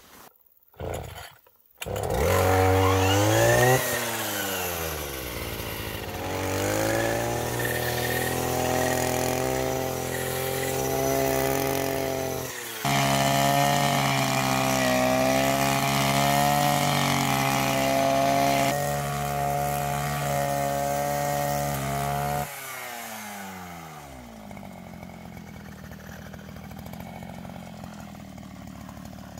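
Petrol brush cutter's small engine revving up, then running steadily at high speed. About halfway there is a short break, then it runs on. Near the end the engine winds down with a falling pitch, leaving a quieter hiss.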